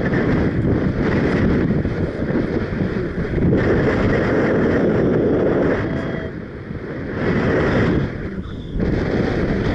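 Strong wind buffeting the microphone during a paraglider flight, a loud rushing noise that comes in gusts, with short lulls about six and eight and a half seconds in.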